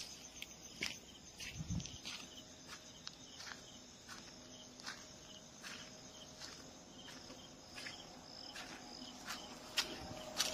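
Crickets chirping steadily, with irregular sharp clicks and scuffs from two dogs' claws and paws on hard floor tiles as they wrestle, and one brief low thump near the start.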